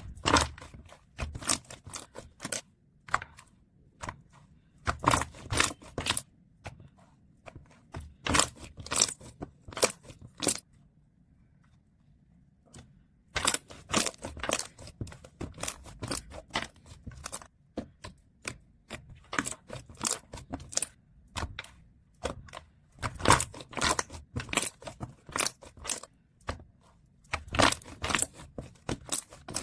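Foam slime being squeezed and poked by hand, giving clusters of crackling, popping clicks, with a quiet gap of about two seconds near the middle.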